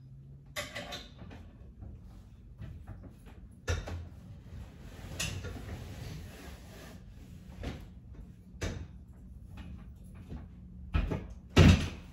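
Things being handled and moved around in a small room: scattered knocks and clatters with rustling between them, and a louder thud near the end.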